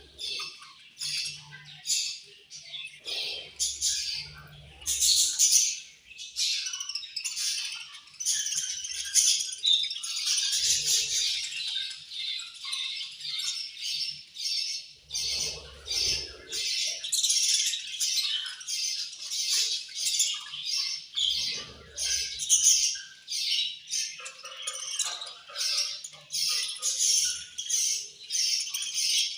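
A flock of budgerigars chirping and squawking without pause, many birds calling over one another in quick, short chirps.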